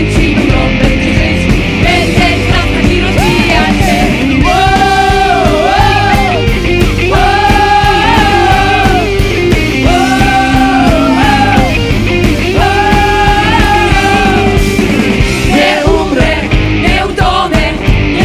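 Worship band playing a loud rock song with singing, the full band steady throughout; a held melody line in long notes comes in about four seconds in and drops away near the end.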